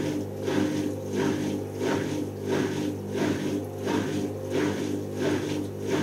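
Hoover Optima WMH148 front-loading washing machine on a spin-only cycle, its motor turning the drum at low speed: a steady motor hum with a whooshing swell about every two-thirds of a second as the drum goes round.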